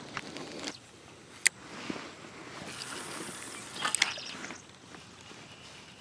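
Handling noise close to the microphone: a sharp click about a second and a half in, a short rubbing hiss, then a few more clicks around four seconds in, over a faint steady background hiss.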